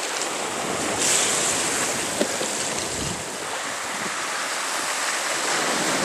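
Sea waves washing with wind on the microphone, a steady hiss, with one brief click about two seconds in.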